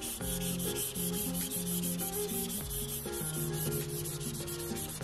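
Apple Pencil tip rubbing back and forth across an iPad Pro fitted with a paper-feel matte screen protector, a dry scratchy scrubbing in quick, even strokes, as when erasing. Background music plays underneath.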